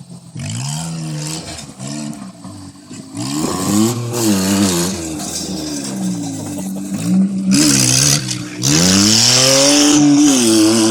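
Geo Metro car engine on a home-built go-kart, revving up and down, its pitch rising and falling several times with the highest climb near the end.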